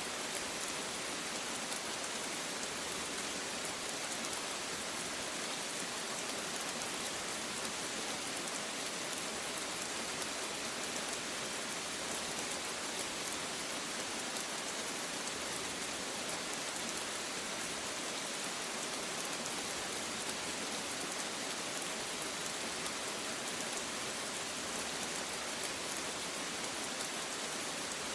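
Steady rain falling, an even hiss of drops with fine pattering, unchanging throughout.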